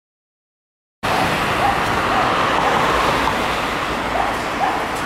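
A dog barking in short, separate barks over the steady running of a MAN TGM fire engine's diesel engine; the sound cuts in about a second in.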